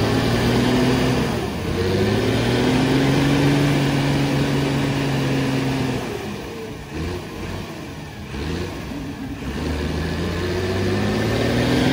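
Vehicle engine revving under load during a tow attempt to pull a tipper truck bogged in wet ground free. The engine note climbs over the first couple of seconds and holds high, eases off about halfway through, then revs up again near the end.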